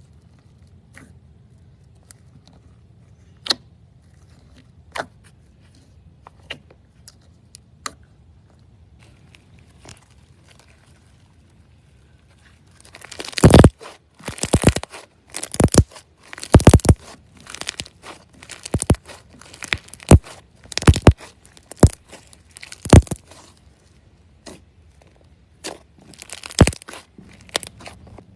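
Slime being pressed and squeezed by hand, crunching and crackling. A few small scattered clicks come first, then from about halfway through a run of loud crunchy crackles, roughly one burst a second, until near the end.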